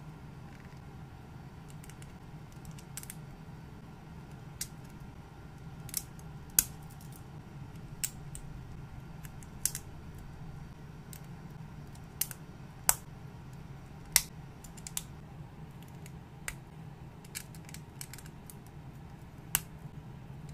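Plastic building bricks clicking and snapping as small pieces are pressed onto a plate by hand. The sharp clicks come irregularly, about one every second or so, over a faint steady low hum.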